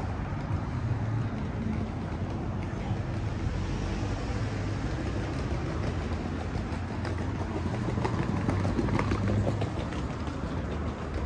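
City street traffic: cars passing, a steady hum of engines and tyres that swells briefly about eight to nine seconds in.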